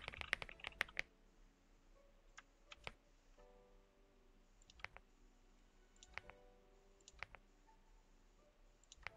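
Computer keyboard typing, faint: a quick run of keystrokes in the first second, then scattered single clicks every second or so.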